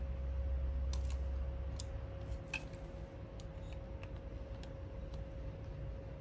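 Scattered light plastic clicks and taps of wire connectors being handled and plugged into a refrigerator control-board test kit, over a faint steady tone. A low hum underneath stops a little over two seconds in.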